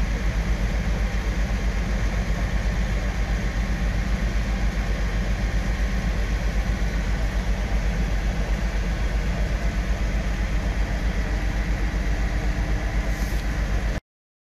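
Motor cruiser's inboard engines running under way, heard from inside the wooden cabin: a steady low drone with a fast, even throb over a rushing hiss. It cuts off suddenly near the end.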